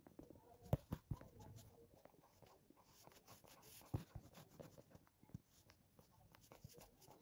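Near silence: room tone with a few faint, short clicks, the clearest about a second in and about four seconds in.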